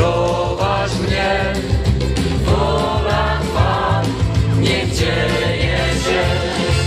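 Christian worship song performed live by a band and singers over a PA system: voices singing together over a steady bass and drum beat, loud.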